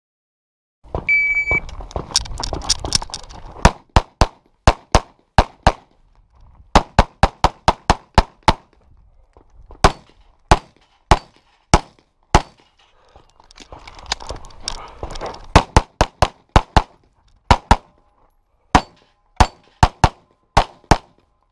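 An electronic shot timer beeps once, and then a handgun is fired through a competition stage: about thirty shots, mostly in quick pairs, in strings broken by short pauses with movement noise between them.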